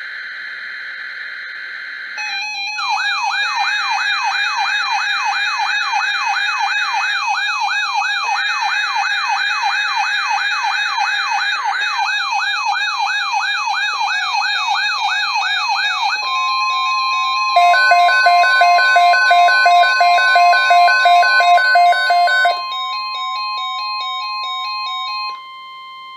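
Emergency Alert System tones on a NOAA Weather Radio broadcast: the end of the digital SAME header data burst, then a fast warbling siren-like alert tone for about thirteen seconds, then the steady single-pitch 1050 Hz weather-radio alert tone. A louder rapid beeping alarm sounds over it for about five seconds in the middle of that steady tone.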